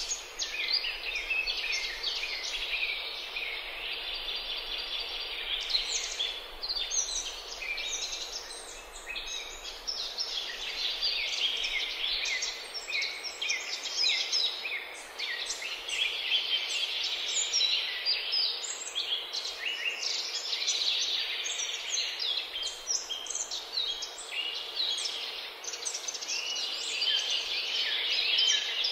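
A chorus of many small birds chirping and singing together, a dense, unbroken stream of short high chirps and trills.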